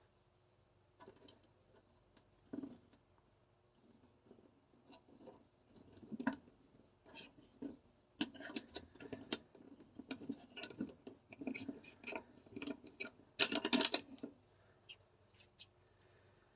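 Parts of an airsoft pistol being handled and fitted together by hand: irregular small clicks, light knocks and short scrapes, getting busier after the first half, with a louder burst of rattling scrapes near the end.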